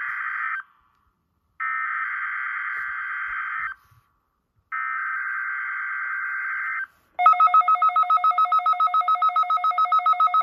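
Emergency Alert System header: three bursts of buzzing digital data tones, separated by short silences. About seven seconds in, a two-tone alert tone starts and pulses rapidly, about nine times a second, signalling a tornado warning drill.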